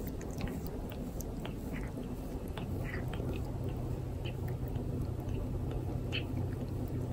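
A tabby cat licking a person's hair, its rough tongue rasping through the strands in irregular short strokes, with wet lapping mixed in.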